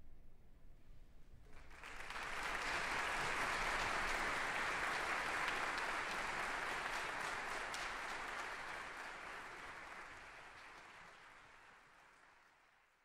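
Concert audience applauding at the end of a wind band piece, the clapping swelling in about a second and a half in and then gradually fading out.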